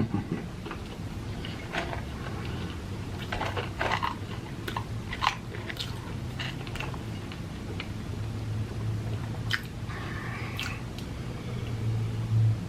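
Close-miked chewing and biting of food, with scattered short wet clicks and crunches over a steady low hum.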